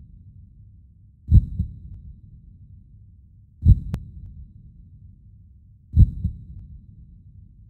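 Slow heartbeat sound effect: three deep double thumps, lub-dub, evenly spaced about two and a half seconds apart, each fading into a low rumble. A single sharp click falls just after the second beat.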